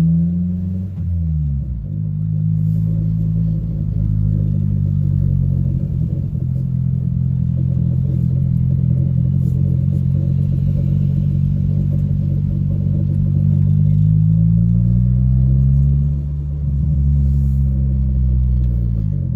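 Turbocharged 1993 Honda Civic EG's four-cylinder engine running on the road: its note drops about a second in, holds steady at cruise, then climbs again from around fourteen seconds in and falls off near the end.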